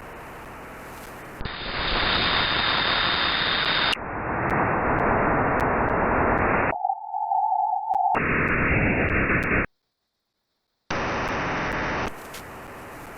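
Radio receiver being tuned: hiss and static that changes abruptly in character from one block to the next. Partway through a steady tone cuts in for about a second, and about ten seconds in the sound drops out completely for a moment.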